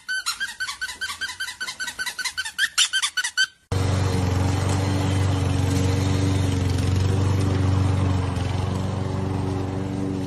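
A quick run of high, pitch-bending squeaks, several a second, that stops abruptly after about three and a half seconds. Then a walk-behind lawn mower's engine runs steadily.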